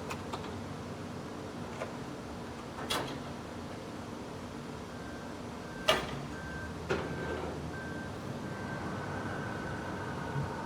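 Factory ambience of a big machine: a steady machinery hum with several sharp knocks, the loudest about six seconds in, and a faint high tone coming and going in the second half.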